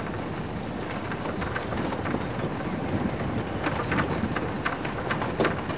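Open safari vehicle driving over a rough dirt track: steady engine and road noise with knocks and rattles from the bodywork, coming thickest in the second half.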